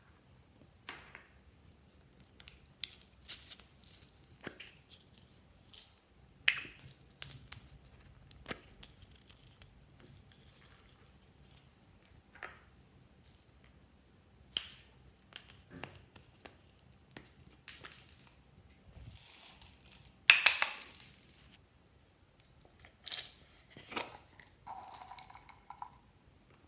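Slime being handled at close range: irregular crackles, clicks and short rustles. The loudest is a burst of crackling about twenty seconds in.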